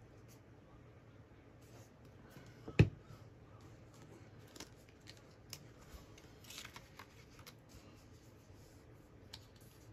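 Paper and card being shifted and flipped by hand on a cutting mat: light rustles and small taps, with one sharp knock about three seconds in.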